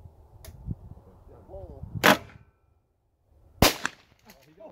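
Two shotgun shots about a second and a half apart, with a brief shout just before the first.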